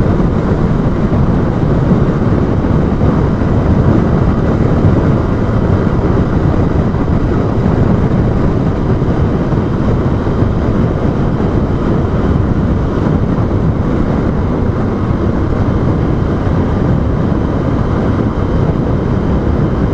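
Riding a Honda Bros 160 motorcycle at road speed: loud, steady wind rush on the action camera's microphone, with the bike's single-cylinder engine running underneath.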